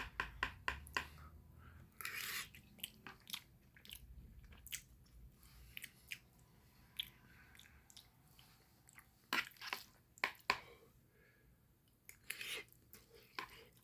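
A person chewing a mouthful of food close to the microphone, with wet mouth clicks and smacks at an irregular pace. A few louder airy bursts come about two seconds in and again later.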